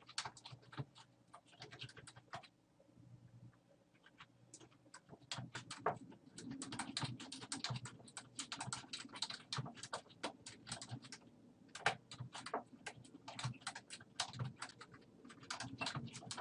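Typing on a computer keyboard: irregular runs of key clicks, with a short lull a few seconds in.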